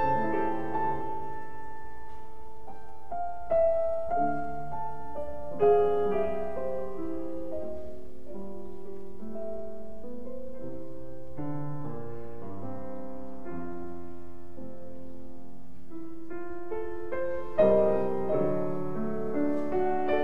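Background music: a slow piano melody, with louder phrases coming in about four seconds in, near six seconds, and again near the end.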